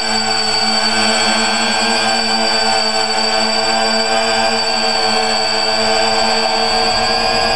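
Quadcopter's electric motors and propellers whining steadily in flight, several steady tones holding their pitch, heard from a camera mounted on the frame.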